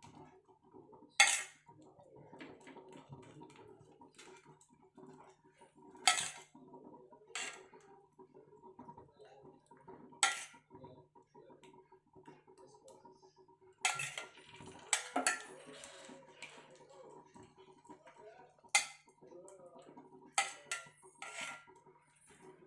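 A metal spoon clinking against cookware, about nine sharp strikes at irregular intervals, as egg mixture is spooned over bread on a tawa.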